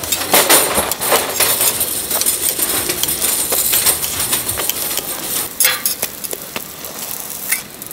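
Metal spatula, tongs and hotteok press clinking and scraping against a flat steel griddle in irregular knocks, busiest in the first few seconds.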